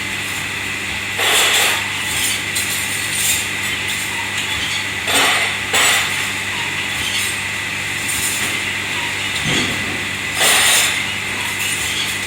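Steady hum of commercial kitchen machinery, with short bursts of dishes and utensils clattering and scraping about four times.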